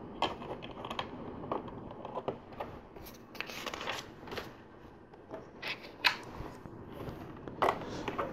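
Plastic LEGO pieces being handled and pressed: scattered faint clicks and taps, with fingers rubbing on the plastic.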